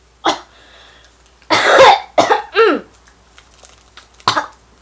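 A boy coughing and letting out short strained cries that fall in pitch, his reaction to an extremely sour candy.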